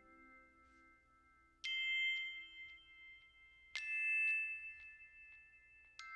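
Soft background music of bell-like struck notes, three of them about two seconds apart, each ringing on and slowly fading.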